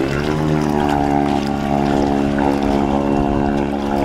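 Small Yamaha outboard motor pushing a canoe, running at a steady cruising speed. Its pitch rises briefly at the start and then holds level.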